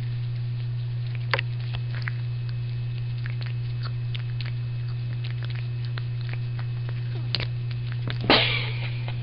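Steady low electrical hum, with scattered faint clicks and one short noisy burst a little after eight seconds in.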